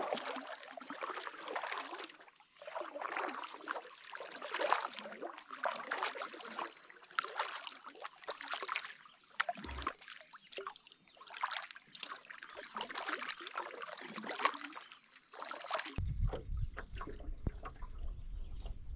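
Canoe paddle strokes in calm water: a splash and trickle of drips about every second and a half. Near the end the sound changes to a low, steady rumble of wind on the microphone.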